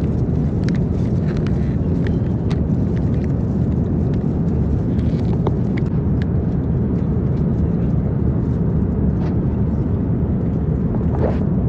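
Steady low rushing noise of a jet airliner's cabin in flight, with faint scattered clicks.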